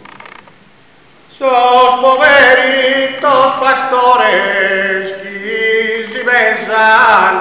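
Sardinian cuncordu male a cappella singing: after a short pause as the last chord dies away, a lone lead voice comes in about a second and a half in to open the next phrase, and held lower notes join beneath it from about halfway.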